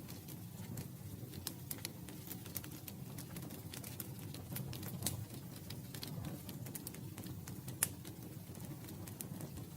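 Wood campfire crackling: frequent sharp, irregular crackles over a low steady rumble, with one louder pop about eight seconds in.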